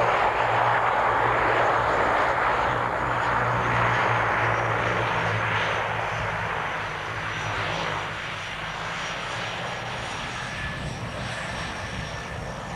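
A DHC-6-300 Twin Otter's twin PT6A turboprop engines and propellers running, with a steady low propeller drone under a broad rush and a faint high whine that falls slightly in pitch. The sound eases off about two-thirds of the way through.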